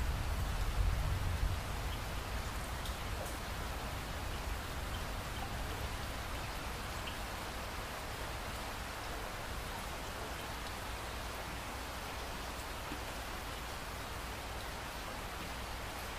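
A steady, even hiss like falling rain, with a few faint ticks scattered through it and a low rumble in the first second or two.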